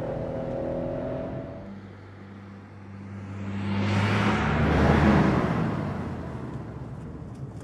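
A car speeds past: a steady engine hum, then a rushing whoosh that swells to its loudest about five seconds in and fades away.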